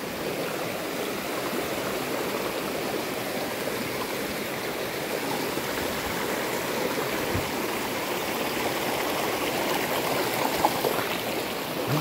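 Shallow rocky stream flowing over and around stones, a steady babble of running water, with one brief knock near the end.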